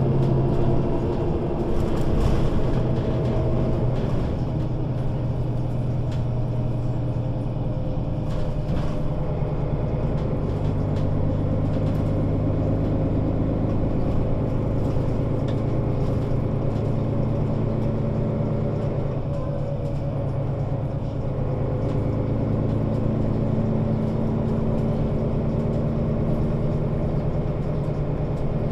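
Mercedes-Benz O 530 Citaro Facelift city bus engine running as the bus drives, its note stepping to a different pitch a few times.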